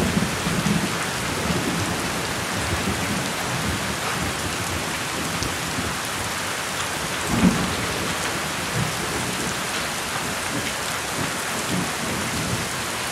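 Heavy monsoon rain with strong wind buffeting the microphone: a steady hiss of rain with uneven low gusts, and one brief louder bump about seven and a half seconds in.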